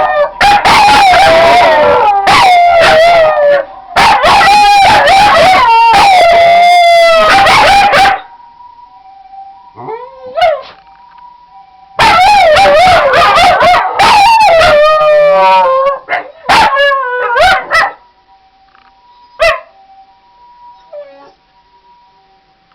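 Two Shiba Inu dogs howling loudly together, set off by a passing ambulance siren. The howling breaks off about eight seconds in, leaving the faint two-tone hi-lo siren, then the dogs take it up again around twelve seconds in and end with a few short yips. After that only the faint siren remains, with one sharp click near the end.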